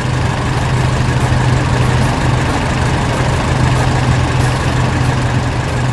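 A heavy farm machine's engine running steadily at idle, a constant low hum with no revving.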